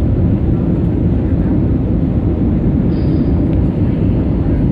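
Steady low rumble inside the cabin of an Airbus A320neo, the engine and airflow noise of the airliner around the landing.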